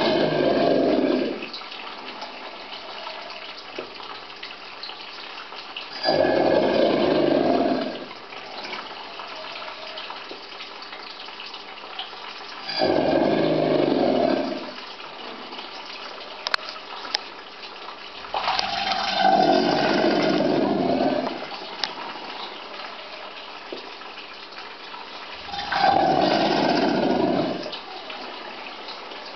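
Alligators bellowing in a mating-season chorus: five deep bellows of about two to three seconds each, roughly six seconds apart. Much of the bellow is subsonic, felt more than heard.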